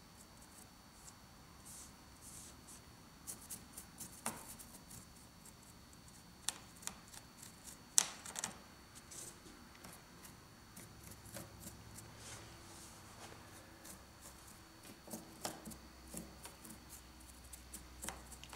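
Small artist's paintbrush scratching and dabbing against a moulded model rock face during dry brushing: faint, irregular scratches and light clicks, the sharpest about eight seconds in.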